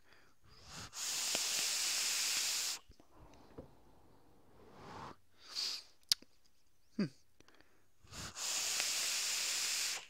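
Vape mod's rebuildable atomizer firing while air is drawn through it, its cotton wick freshly soaked with e-liquid: a steady hiss starting about a second in and lasting nearly two seconds, and another near the end. Between the two there is a breathy exhale and a couple of short clicks.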